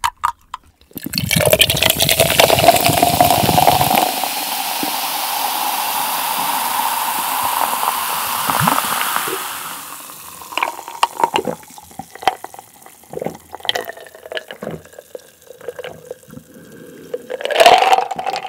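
A Coca-Cola can is cracked open with a couple of clicks. Cola is then poured into a glass jar, fizzing loudly, and the pouring tone rises slowly in pitch as the jar fills. This is followed by gulps of the drink and a loud breath out near the end.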